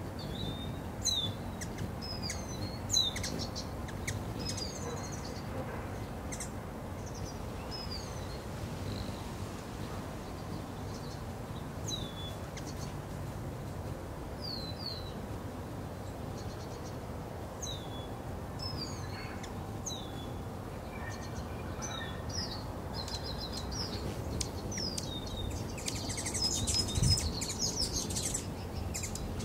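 Hummingbirds chirping: short, high chip notes, many sliding downward, scattered through, with a denser, louder flurry of chattering near the end, over steady outdoor background noise.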